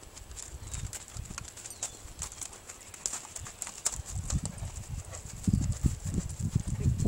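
Hoofbeats of a gaited horse ridden bareback across a grass field. They are dull, rhythmic thuds that grow louder as the horse approaches and comes close by near the end.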